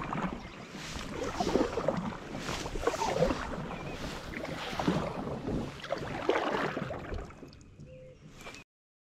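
Water sloshing and splashing against a kayak hull as it moves on the lake, in irregular surges, with wind on the microphone. It fades near the end and then cuts off abruptly.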